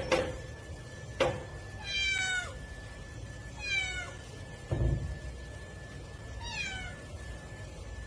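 A cat meowing three times, each meow short and falling in pitch. A sharp click comes about a second in and a dull thump just before the second half.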